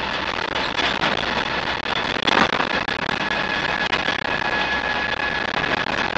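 Inside the cab of a Land Rover Series III 109 breakdown truck on the move: engine, drivetrain and road noise with body rattles and a steady high whine. A loud sharp knock comes a little over two seconds in.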